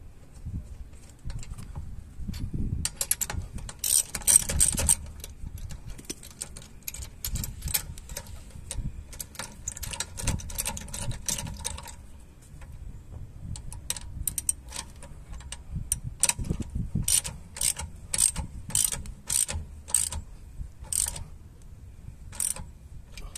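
Ratchet wrench clicking as lug nuts are run down onto a car's wheel studs: bursts of rapid clicks, then toward the end a steady run of single clicks, about two a second.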